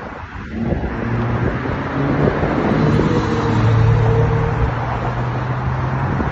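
Road traffic passing: a steady hum of cars with a low drone that swells to its loudest about halfway through and then eases.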